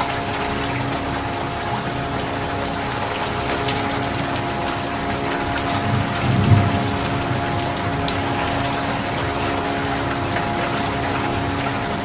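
Steady rain falling, with individual drops ticking, over a constant low hum. A single dull low thump stands out about halfway through.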